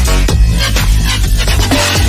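Electronic dance music with a heavy bass and a fast, driving beat.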